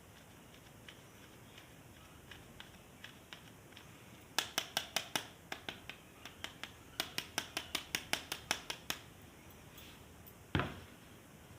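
Plastic toy parts being handled: two quick runs of sharp clicks, about five a second, then a single heavier knock near the end.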